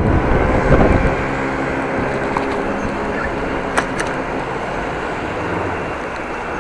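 Wind buffeting the microphone over steady rolling noise from a bicycle ride. It gusts harder in the first second, then settles, with a single sharp click about four seconds in.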